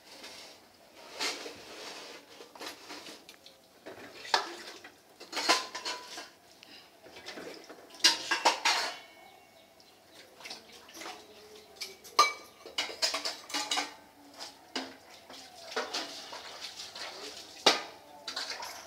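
Irregular clinks and clatters, some in quick clusters, loudest about eight seconds in and again near the end.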